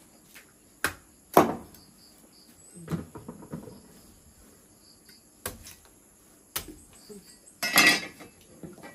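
Kitchenware (pots, dishes and utensils) knocking and clattering: a handful of separate sharp knocks, the loudest about a second and a half in, and a longer clatter near the end.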